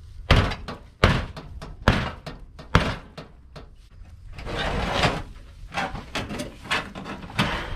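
Four hard strikes with a hand tool, about one a second, on an old manger's corrugated tin sheeting and wooden framing. They are followed by the tin sheet rattling and scraping as it is pulled and wrestled loose, with a few smaller knocks.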